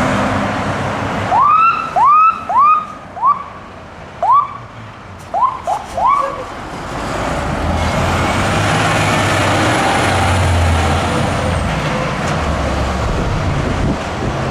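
Fire truck's electronic siren blipped in about eight short, quickly rising chirps over some five seconds, then the truck's diesel engine running loudly as it drives past and pulls away.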